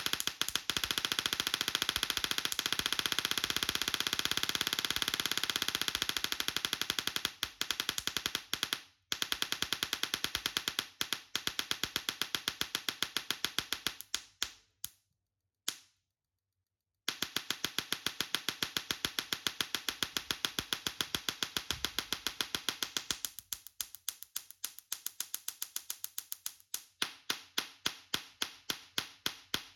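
Tesla coil spark discharge: a rapid stream of sharp electric crackles, cutting out briefly about nine seconds in and again for about two seconds midway, then thinning to separate snaps, several a second, near the end.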